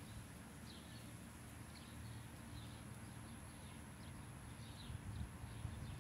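Faint outdoor ambience: small birds chirping in short, scattered notes over a steady low rumble, with a few soft bumps near the end.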